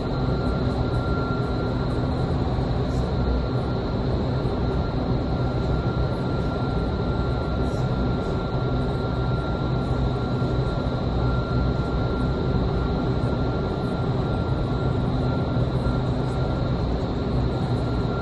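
Indoor skydiving wind tunnel running, its fans driving a steady rush of air with a high, steady whine and a low hum over it.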